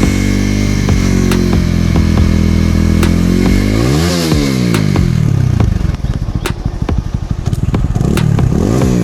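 TVS Apache RTR 200's single-cylinder engine running, revved up and back down about four seconds in and blipped again near the end, with scattered sharp ticks. It is being test-run after the broken converter inside its silencer was welded back in place.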